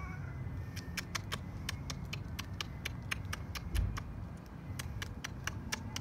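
A run of sharp, irregular clicks, a few a second, over a steady low rumble, with one dull thump about halfway through.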